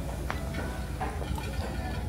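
Restaurant room noise: a steady low hum with a few light clicks and clinks, as of tableware being handled.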